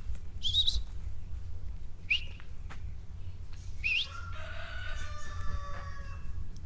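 Three short, high rising bird chirps, then a rooster crowing for about two seconds near the end, over a steady low rumble.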